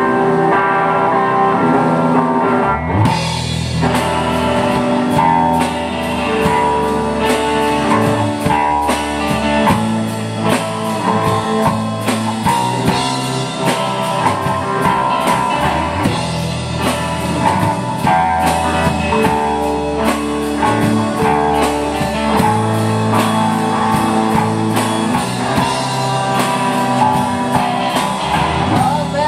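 Live rock band playing an instrumental passage on electric guitars, bass and drum kit. The first few seconds are held chords, then the drums and bass come in about three seconds in with a steady beat.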